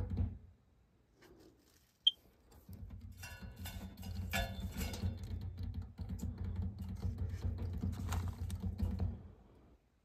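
The 1/2 hp ECM blower motor of a WaterFurnace geothermal heat pump trying to run: a low, rapid ticking rumble. It drops out briefly early on and starts again just after a sharp click about two seconds in, then stops shortly before the end. The motor has failed and will not start, which the technician says is how about 98% of ECM motors fail.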